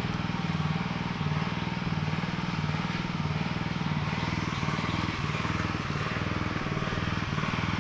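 Small petrol engine of water-well boring equipment running steadily, its note swelling and easing slightly about once a second.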